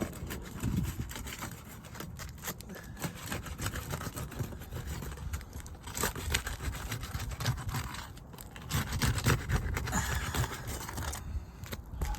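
Asphalt roof shingles being pried apart to break their sealant strips, with irregular scraping, crackling and tearing.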